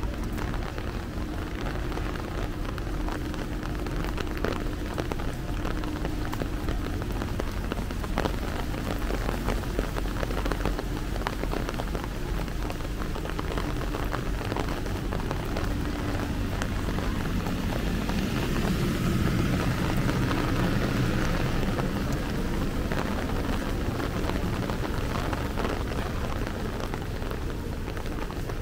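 Steady rain with a dense patter of drops. A low rumble swells and fades about two-thirds of the way through.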